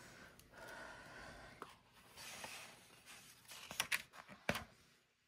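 Faint rustling of a picture book's paper pages being handled and turned, with a few sharp taps near the end.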